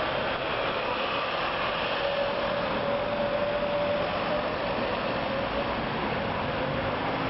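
Steady wind noise on the microphone, with a faint wavering whine running through it.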